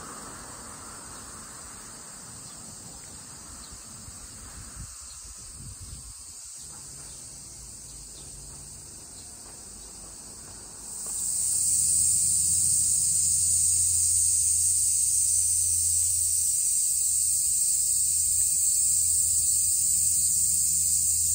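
Cicadas singing in the trees: a steady, high buzz, faint at first, that becomes much louder about halfway through.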